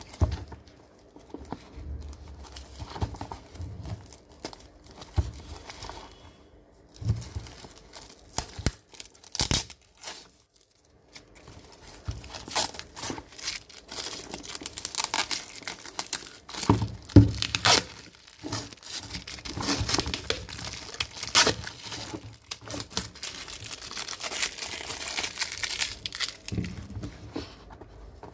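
Packaging being torn open and crinkled by hand, with irregular rustling and sharp handling clicks and knocks, broken by a brief pause about ten seconds in.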